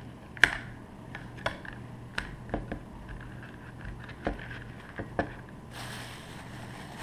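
A kitchen knife and dragon fruit halves being handled on a plastic cutting board on a stone counter: a string of sharp taps and knocks, the loudest about half a second in, over a steady low hum. Near the end a soft rustle.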